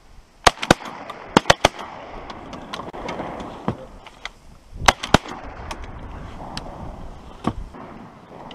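Shotguns firing a string of shots at ducks: about eight sharp blasts, two just after the start, three in quick succession about a second and a half in, two more near five seconds and one near the end.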